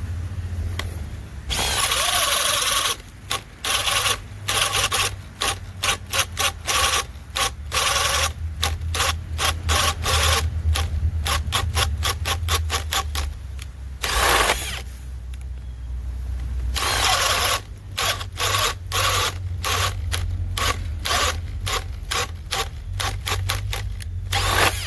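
Makita XPH07 brushless hammer drill boring with a 1.5-inch Bosch Daredevil spade bit, the trigger pulsed in many short bursts with a few longer runs as the bit is worked down into the material. A steady low hum runs underneath.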